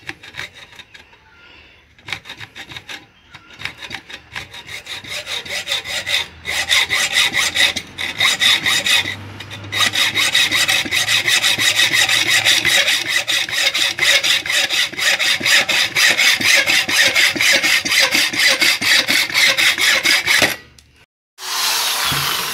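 Hand hacksaw cutting through a short length of iron rod: a steady run of back-and-forth rasping strokes, light at first and much louder from about six seconds in, with a few brief pauses, stopping shortly before the end.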